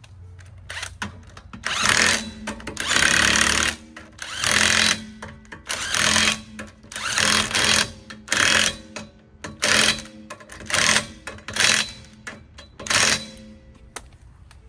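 Impact wrench run in short bursts, about ten in a row roughly a second apart, as the lug nuts on the spare wheel are run on.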